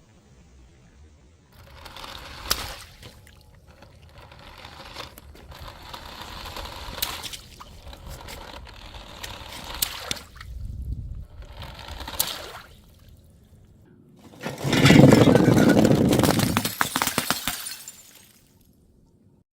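Glass bottles and other objects breaking and being crushed: scattered sharp cracks, then a loud crash with dense crackling that lasts about three seconds near the end.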